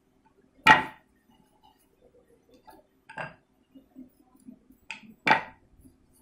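Kitchen utensils knocking and clinking on a hard floor: two sharp clinks with a brief ring, one about a second in and one near the end, and a softer one in between, over a faint steady hum.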